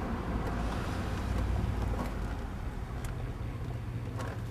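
A steady low vehicle rumble, with a few faint clicks.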